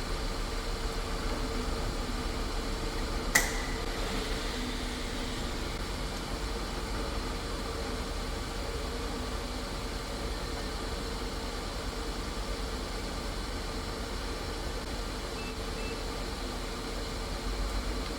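Milling machine spindle running at a steady hum, with a single sharp click a few seconds in.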